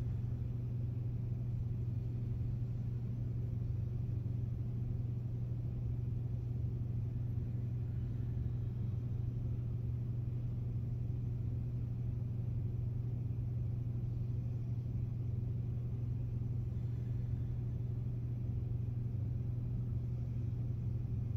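A steady low hum that holds one pitch and never changes, with a faint even hiss above it and no other sounds.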